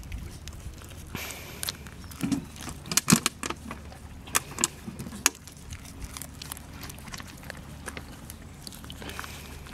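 Pit bull puppy chewing dried carcass, a run of sharp crunches and clicks, thickest from about two to five and a half seconds in.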